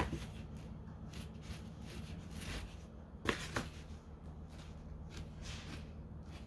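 Fingers rubbing and smoothing a small clay ring on a board: faint, irregular scuffing, with two light knocks a little over three seconds in, over a steady low hum.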